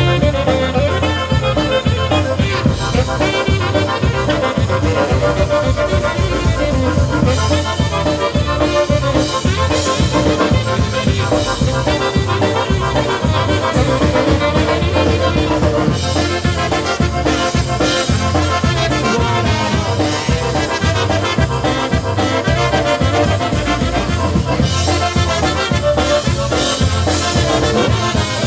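Polka band playing an instrumental break between verses, brass and accordion over a steady bass beat.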